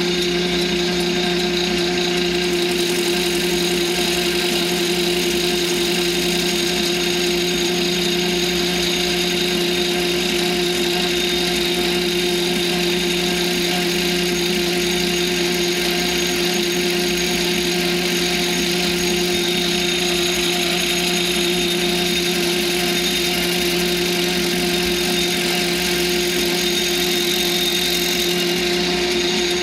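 South Bend lathe running with a steady hum while a homemade tool bit turns a stack of plexiglass squares on an arbor down to round discs. A fine high hiss of the cut joins in a couple of seconds in and stops shortly before the end.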